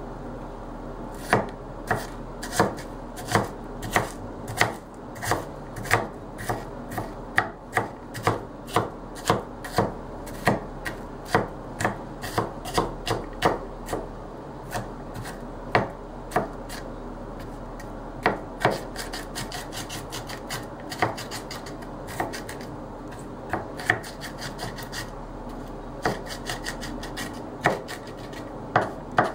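Mezzaluna mincing onion on a plastic chopping bowl: the curved steel blade knocks sharply on the board stroke after stroke, irregularly, a few times a second, with quicker runs in places. The strokes begin about a second in.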